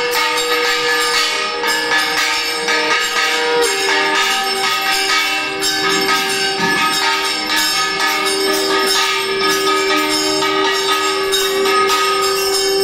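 Brass puja bells rung rapidly and continuously during the arati, several ringing tones overlapping and changing pitch a few seconds in.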